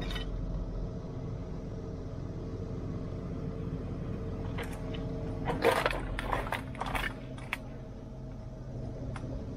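A steady low mechanical hum, with loose scrap metal clattering and clinking for about two seconds in the middle and a couple of single clinks near the end.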